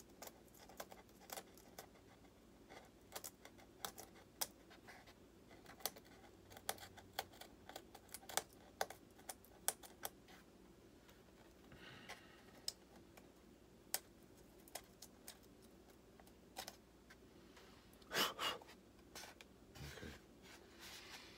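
Hobby knife cutting into the foam wing of a model jet: irregular small sharp clicks and scratches as the blade works through the foam, with a louder rub near the end as the wing is handled.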